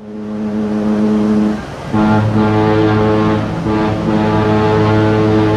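Ocean liner's ship horn sounding a long, loud blast. One note sounds for about a second and a half, dips briefly, then comes back with a deeper second note joined to it, and the two-note chord holds until near the end.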